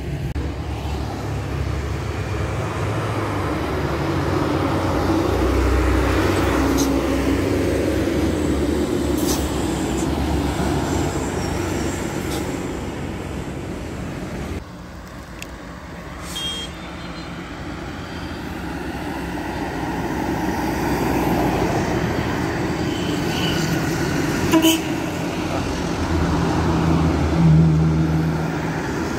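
Road traffic with buses and trucks passing close by, engine noise swelling and fading as they go past, and a brief horn sounding near the end.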